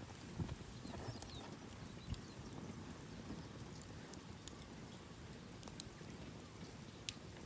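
Campfire crackling: scattered sharp pops over a steady low rustle, with a few duller knocks in the first two seconds.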